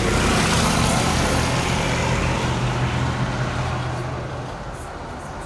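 A motor vehicle's engine running close by, then fading away over a few seconds as it passes.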